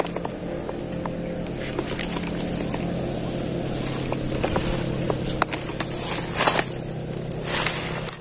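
A steady low motor hum with scattered light clicks, and two short bursts of rustling through grass and leaves about six and a half and seven and a half seconds in.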